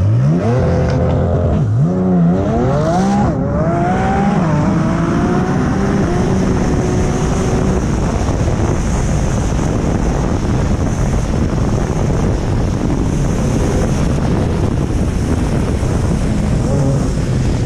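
A drag car's engine at full throttle off the launch. Its pitch climbs steeply and drops back at three quick gear changes in the first five seconds, then a dense rush of engine and wind noise at high speed takes over.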